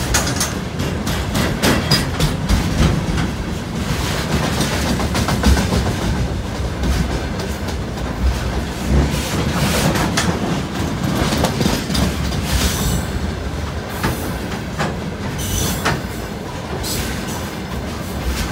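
Container freight train rolling past: the flat wagons' wheels clatter over the rail joints in a steady, uneven run of clacks. A few brief high squeals from the wheels come in the second half.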